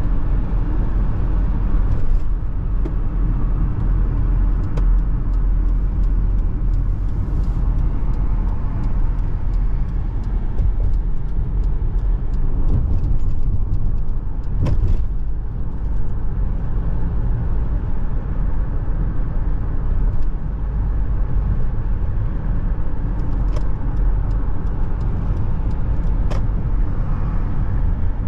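Steady road and tyre noise of a car driving along a city street, a low rumble heard from inside the cabin, with a brief thump about halfway through.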